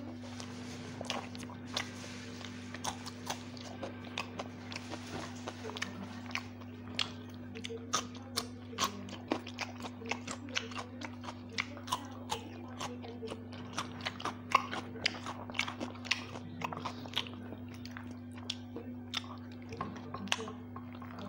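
A person eating by hand close to a clip-on microphone: many short wet chewing and mouth clicks, with crunchy bites of raw cucumber, over a steady low hum.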